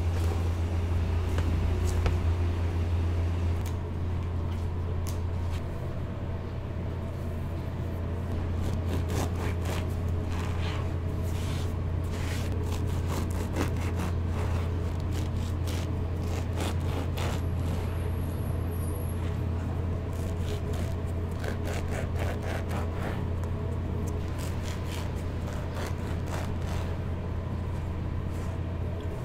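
Serrated bread knife sawing through a crusty loaf on a plastic cutting board, in many short rasping strokes, over a loud steady low hum.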